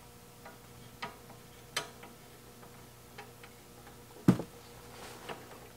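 Scattered sharp clicks and taps of hands working leads and clips at an electronics bench beside a tube-radio chassis, one louder knocking click about four seconds in, over a faint steady hum.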